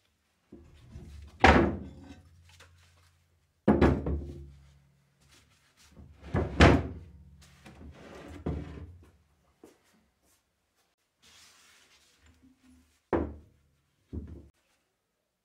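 Rusty parts of an antique grape crusher knocking and clanking as they are pulled apart and set down on the workbench: three heavy knocks in the first seven seconds with low rattling and scraping between them, then two lighter knocks near the end.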